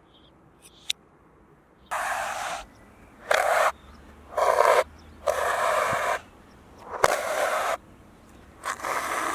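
A scraping or hissing sound played in reverse: after about two seconds of near silence come six separate bursts of it, each under a second long and cutting in and out sharply, with a sharp click about seven seconds in.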